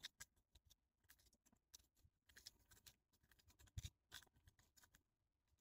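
Near silence with faint, irregular scratching and clicking: fingers shifting on a handheld phone.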